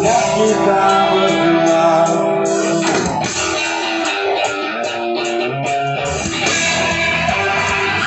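Live rock band playing through the stage PA, with guitars to the fore, electric and strummed acoustic.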